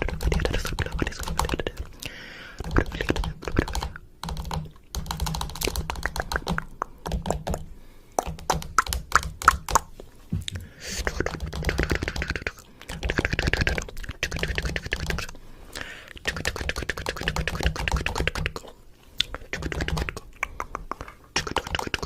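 Rapid, irregular clicking in spurts a second or two long, broken by short pauses, over a low hum.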